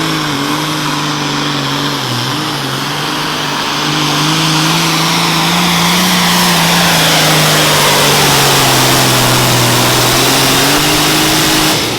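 Turbocharged diesel engine of a super farm pulling tractor running hard under full load, its pitch dipping briefly about two seconds in, then holding steady and getting louder before cutting off suddenly near the end.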